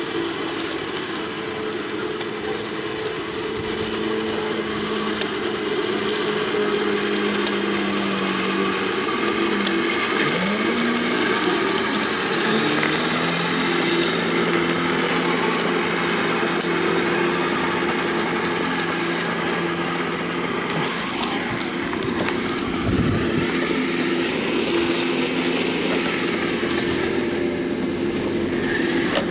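Recorded Tiger I tank engine sound playing from an MP3 sound unit in a 1:16 Heng Long RC Tiger I: a steady multi-tone engine note that glides and shifts pitch about a third of the way in.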